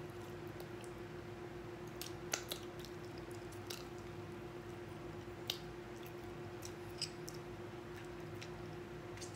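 A person eating baked chicken with her fingers: quiet chewing, lip smacks and finger-licking, with a few sharp clicks spread through. A steady low hum runs underneath.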